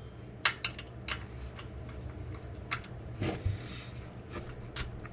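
Irregular light clicks and metal taps from hand tools tightening a transmission mount, over a faint steady low hum.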